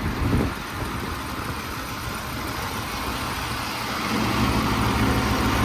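Cammed 5.7-litre Hemi V8 with a stage 2 cam and long-tube headers, idling just after its first start. There is a brief louder moment right at the start, and the engine gets louder about four seconds in.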